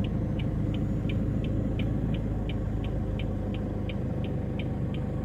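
Vehicle engine idling steadily as a low hum, with a short high chirp repeating evenly about three times a second over it.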